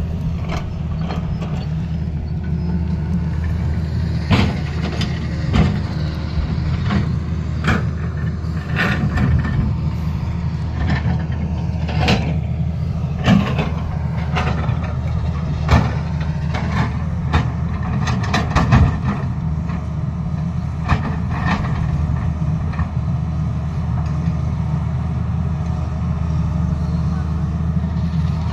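Tata Hitachi excavator's diesel engine running steadily, with sharp knocks and clatters scattered through the middle stretch.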